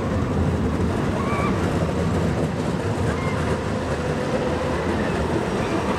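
Tram passing close by, its wheels rolling steadily on the rails, over a constant background din from the funfair.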